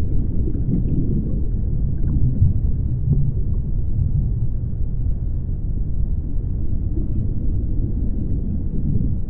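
A low, steady rumbling drone with a hum underneath, without clear beats or breaks.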